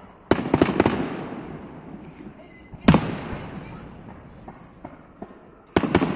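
Aerial fireworks shells bursting: a loud bang with a quick run of cracks about a third of a second in, a single sharp bang near three seconds, and another cluster of bangs near the end, each fading away slowly.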